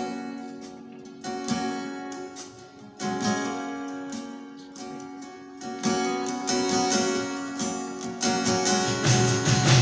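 Live band music: a guitar strums chords that ring out and fade, coming closer together and louder toward the end.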